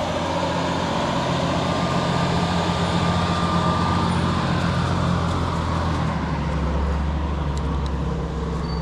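Vehicle engine running steadily while under way, with wind and road noise over it; about six seconds in the engine note drops lower.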